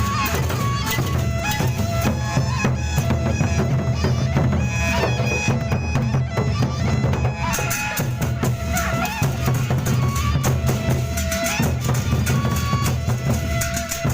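Gendang beleq ensemble playing: large drums beating a dense rhythm under clashing cymbals, with a reedy wind melody on top.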